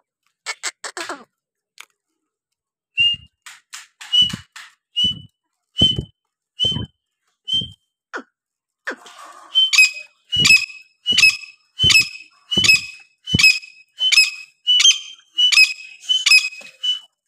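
Grey francolin (teetar) calling: a series of short, high whistled notes. They come about a second apart at first, then from about halfway louder and quicker, about one and a half a second. A few sharp clicks just at the start.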